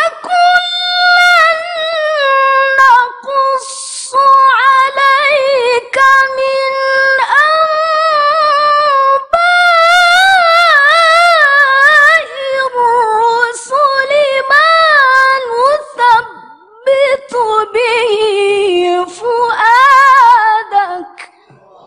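A woman's voice chanting Qur'an recitation (tilawah) in long, melodic, ornamented phrases with wavering pitch. There are brief pauses for breath, and the phrase dies away near the end.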